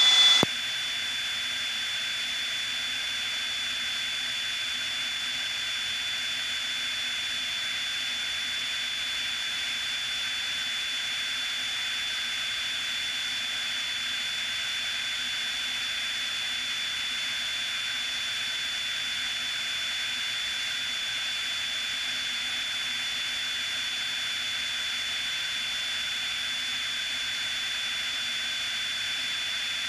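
Steady cabin noise of a Piper Cherokee single-engine light plane in cruise: an even hiss and drone that holds unchanged, with a constant high-pitched whine over it.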